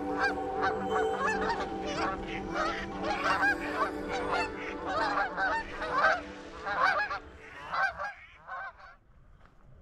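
A flock of geese honking, many short calls overlapping several times a second, thinning out and stopping near the end.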